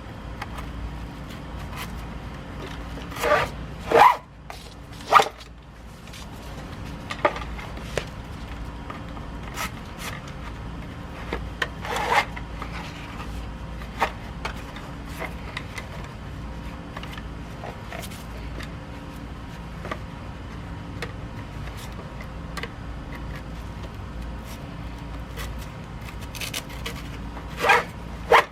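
Cam band webbing rubbing and sliding through the slots of a scuba tank boot, with scattered clicks and knocks while the boot is strapped onto the cylinder. The loudest handling noises come a few seconds in, about twelve seconds in and near the end.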